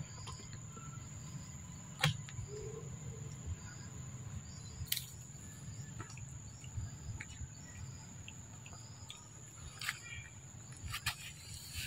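Insects singing in one steady high tone, with a few sharp clicks about two, five, ten and eleven seconds in.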